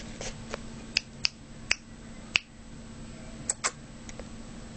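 About half a dozen short, sharp clicks at irregular intervals, two of them close together near the end, over a faint steady hum.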